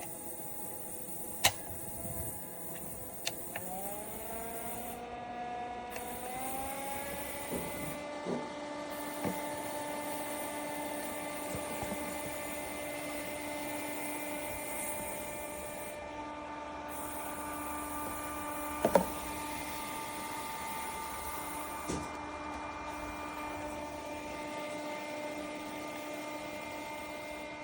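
BLATACY 16,000 BTU portable air conditioner running with a steady whine. Its motor rises in pitch a few seconds in as it spins up, then holds an even hum. A few sharp clicks come early on and again about two-thirds of the way in.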